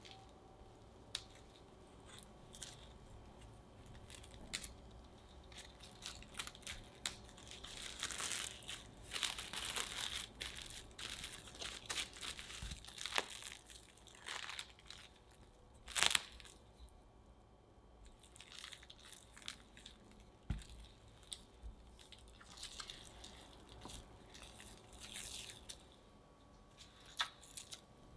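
Plastic cling wrap crinkling and rustling as cookie dough is wrapped in it and rolled flat under a rolling pin, with scattered light clicks and taps. The sharpest click comes a little past the middle.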